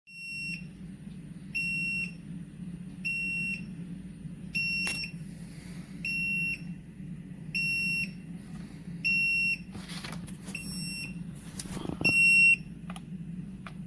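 An electronic beeper sounding a high, steady beep about half a second long every second and a half, nine times, over a steady low hum, with a few short clicks and knocks in between.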